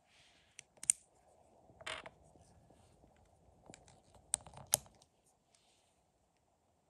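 Small LEGO Technic plastic parts clicking and scraping as they are handled and small tyred wheels are pressed onto the beam's pins: a sharp click about a second in, a short scrape about two seconds in, and a quick run of clicks about four and a half seconds in.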